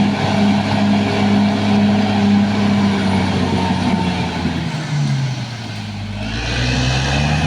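Caterpillar D6R XL bulldozer's diesel engine running steadily; about five seconds in its pitch drops, then climbs back up over the next two seconds.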